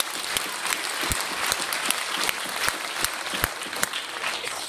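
A large group of people making a rainstorm with their hands: a dense patter like applause, with sharper claps or slaps scattered through it, imitating falling rain.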